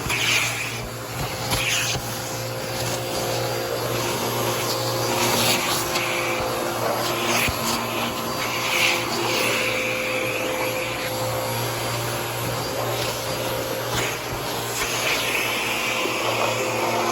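Bissell PowerForce Helix bagless upright vacuum cleaner running steadily: a motor hum under a rushing suction hiss that rises and falls every second or two.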